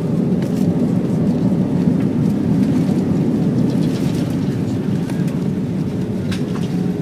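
Airbus A320 decelerating on its landing roll, heard from inside the cabin: a loud, steady rumbling roar of engine noise and wheels on the runway just after touchdown.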